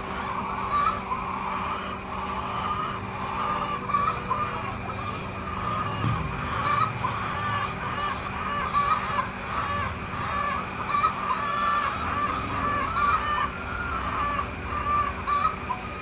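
A flock of chickens clucking and calling, many short overlapping calls throughout, over a steady machine hum.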